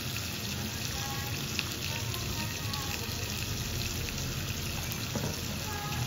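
Thin slices of beef sizzling steadily in a hot cast-iron sukiyaki pan as sugar is sprinkled over them.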